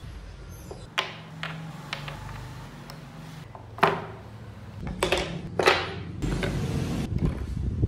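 Carved wooden parts knocking and clacking as they are set down on a wooden tabletop: a string of separate knocks, the loudest about four seconds in, followed by a short run of rubbing and shuffling.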